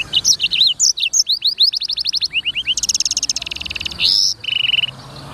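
Black-throated canary (blackthroat) singing a fast, varied song: quick runs of rising notes, a buzzy trill, then a short lower trill that stops just before the end.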